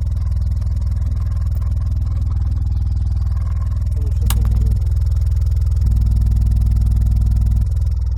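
Repaired subwoofer with a rewound voice coil playing a deep, steady bass tone during a test, moving enough air to be felt. The bass steps up in loudness about four seconds in and again for most of the last couple of seconds, with a short click near the first step.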